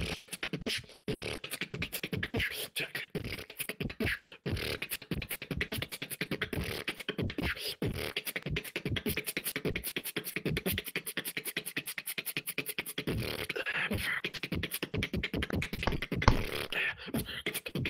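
Solo human beatboxing in a battle round: a fast, nearly unbroken stream of sharp percussive mouth sounds, with a short break about four seconds in.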